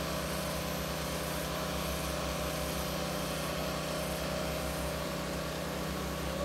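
Hydraulic excavator's diesel engine running steadily: an even low throb with a faint steady whine above it.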